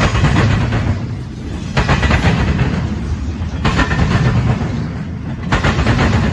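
Union Pacific double-stack intermodal train passing at speed: a steady low rumble of the wheels, broken four times, about every two seconds, by a loud metallic clatter as the wheel sets of each passing well car pound across the diamond rail crossing.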